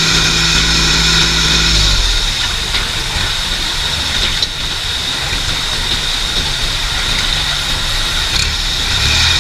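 Tractor's diesel engine running steadily; its low engine note shifts about two seconds in.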